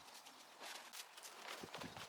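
Footsteps, a few soft steps in two small groups.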